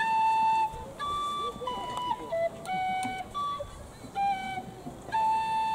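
A wooden sopilka (Ukrainian end-blown flute) playing a slow melody of separate held notes, with a long note at the start and another beginning near the end.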